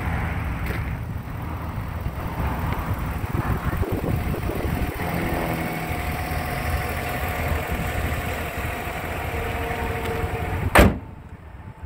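2010 Chevrolet Silverado pickup's engine idling steadily with the hood up, then the hood slammed shut with one loud bang near the end.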